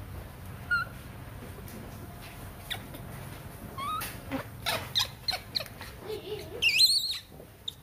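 Baby monkey giving short high squeaks, then a louder, wavering high-pitched squeal near the end.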